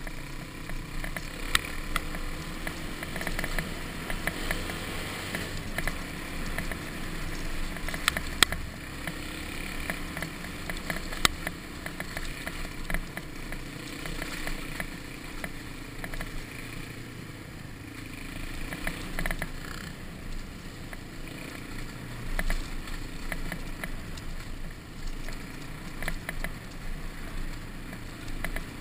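Dirt bike riding a rough dirt track: the engine running under way beneath a steady rushing noise, with sharp knocks and rattles as the bike hits bumps, the loudest about a second and a half, eight and eleven seconds in.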